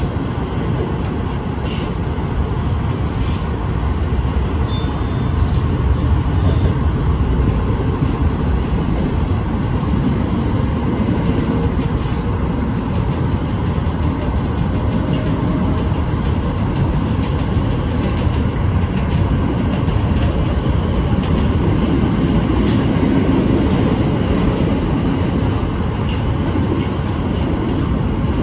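Tokyo Metro Ginza Line subway train running through a tunnel, heard from inside the front car: a steady rumble of wheels on rail, with a few faint clicks from rail joints.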